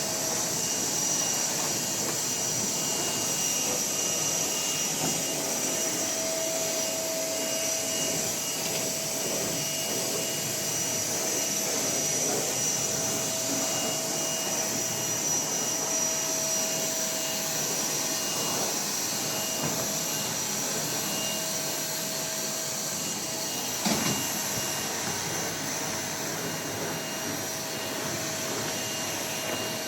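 A machine running steadily: an even rushing noise with a constant high whine, and a single knock near the end.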